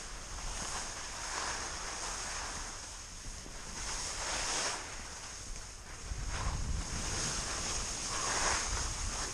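Skis hissing through fresh powder snow, the wash swelling and fading every couple of seconds, with wind buffeting the camera's microphone, the low rumble stronger from about six seconds in.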